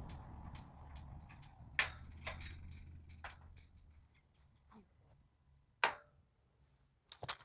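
Automatic gate opener's motor humming low as the metal driveway gate swings shut on its newly fitted spring-loaded caster wheel, which no longer drags. The hum stops about four seconds in, with scattered sharp clicks and a louder snap near six seconds.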